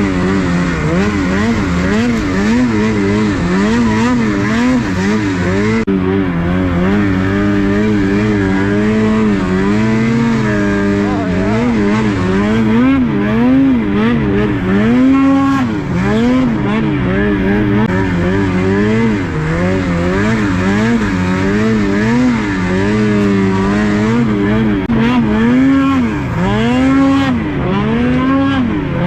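Snowmobile engine revving up and down as it is ridden through deep powder snow, its pitch rising and falling every second or so.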